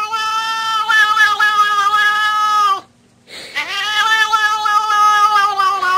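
A pet's long drawn-out howls, held at a steady pitch: one ends a little before the middle with a drop in pitch, and after a short break a second long howl begins.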